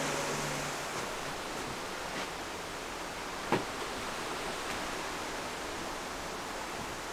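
Steady rushing of a waterfall and stream, with a few faint ticks and one sharper knock about three and a half seconds in.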